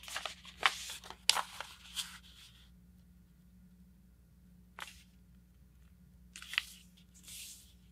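A sheet of letter-size paper being folded in half and creased flat by hand: crinkling and crackling as it is bent over in the first couple of seconds, one sharp tick about five seconds in, then a brushing rustle near the end as the fold is smoothed down.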